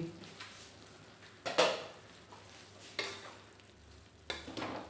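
Wooden spatula stirring eggplant pieces in a metal wok: three scraping strokes about a second and a half apart over a faint sizzle of frying.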